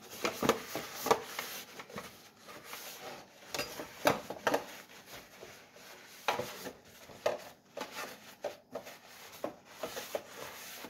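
Butter being rubbed by hand around the inside of a Zenker metal loaf tin to grease it, with irregular rubbing and scraping of fingers on the tin and occasional light knocks of the tin on the board.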